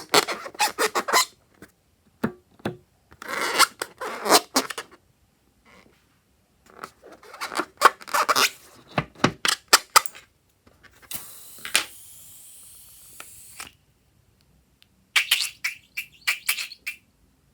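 Slime being squeezed and worked by hand, in bursts of sticky clicks and crackles with short pauses between them. About two-thirds of the way in there is a steady hiss of escaping air lasting a couple of seconds.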